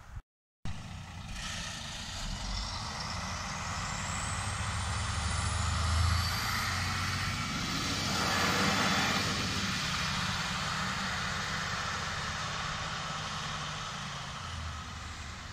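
MÁV Bzmot diesel railcar passing: a steady low diesel engine drone with wheel and rail noise that builds as it approaches, is loudest about halfway through as it goes by, and fades as it runs away.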